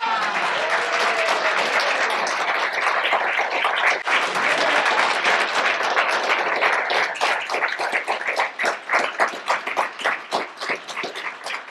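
Audience applauding: dense, steady clapping that thins into scattered separate claps and fades over the last few seconds.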